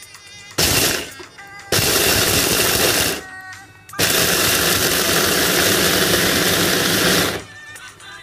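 SilverCrest 3-in-1 mini food processor's motor and blade chopping whole unpeeled almonds in three pulses that grow longer, the last about three and a half seconds.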